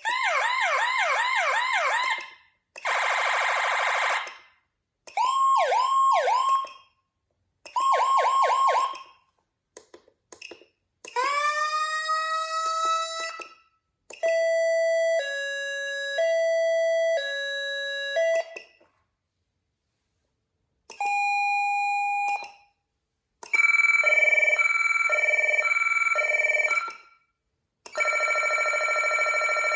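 Whelen CenCom Sapphire electronic siren playing a string of different tones, each a second or a few long with short pauses between. They include rapid repeated upward sweeps, a harsh buzzing tone, a slow upward glide that levels off, a two-note high-low alternation about once a second, and steady and pulsing tones.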